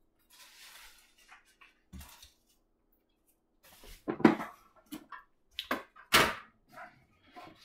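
Cardboard boxes and packing peanuts being handled: scattered rustling and knocking as a box is lifted out and set down on a wooden table, with the sharpest knock late on.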